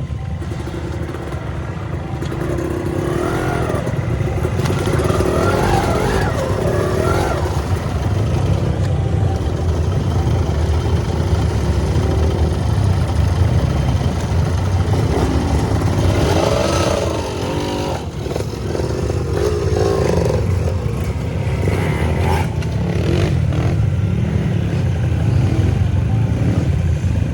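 Off-road trail motorcycle engine running, its revs rising and falling in wavering surges, most clearly a few seconds in and again in the second half.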